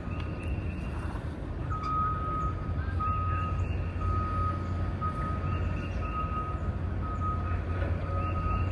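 A vehicle's reversing alarm beeping repeatedly at a steady pitch, starting about two seconds in, over a steady low engine rumble.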